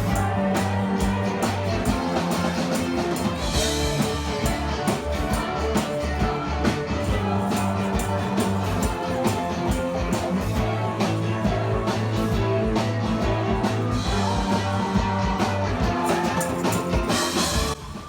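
Rock music with guitar over a steady beat, cutting off abruptly near the end.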